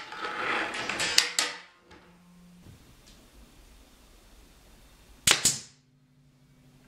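Plywood panels sliding and knocking on a workbench for about a second and a half, then two sharp pops a fraction of a second apart from a pneumatic brad nailer firing into plywood.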